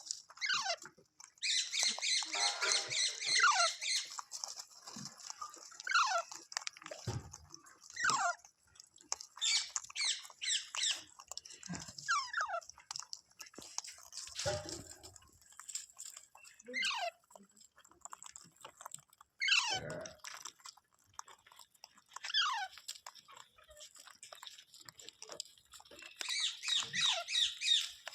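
Parrot calling: short calls that fall in pitch, repeated every second or two, with bursts of rapid, harsh chattering near the start and again near the end.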